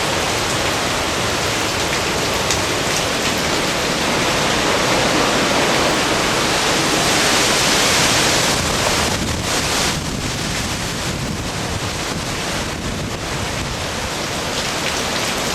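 Hurricane wind and driving rain: a loud, dense, steady rush of storm noise that swells slightly around the middle and eases a little after about ten seconds.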